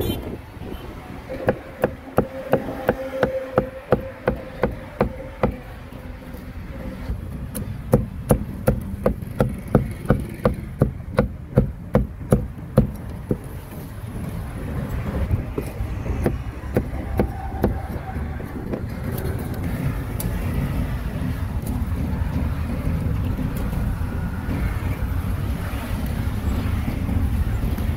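Cleaver chopping grilled meat in two runs of quick, even strokes, about two to three a second, the second run starting about eight seconds in. Then a steady low rumble takes over.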